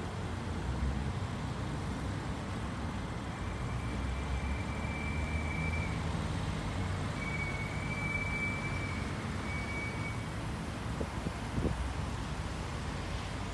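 Steady low rumble of vehicle noise. A faint, thin, high-pitched whine sounds from about three seconds in until about ten seconds in, with a brief break near the middle.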